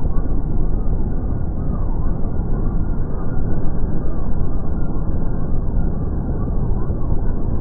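Rotor and engine noise of four military helicopters flying overhead in formation, slowed down along with the slow-motion footage into a steady low rumble with a slow, repeating rise and fall.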